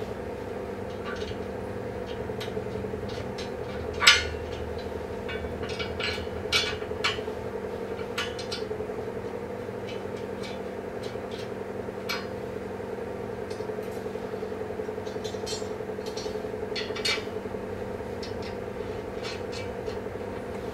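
Steel bed-frame rails and their hardware being handled and fitted by hand: scattered metallic clinks and clicks, the loudest about four seconds in, over a steady background hum.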